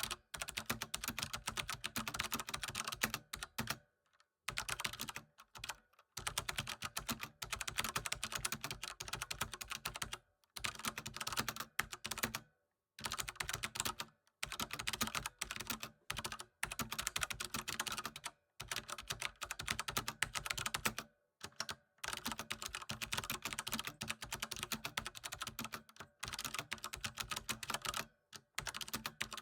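Computer keyboard being typed on quickly, a dense patter of key clicks in runs of one to a few seconds broken by brief pauses.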